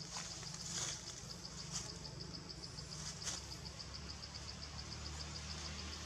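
Insects trilling steadily in forest, a high, evenly pulsing buzz, with a few faint clicks scattered through it.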